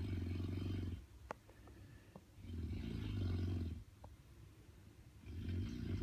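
Loud snoring: rough, rattling snores about a second long, one at the start, one in the middle and one at the end, each a few seconds apart.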